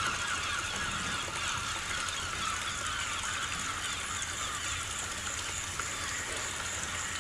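Soundtrack of a projected video excerpt, played back into the room: a steady noisy wash, strongest in the upper range, with a dense chatter of short sounds running through it.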